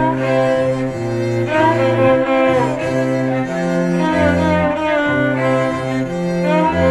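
Background music: bowed strings play slow sustained notes, a low cello or bass line moving under a melody with vibrato.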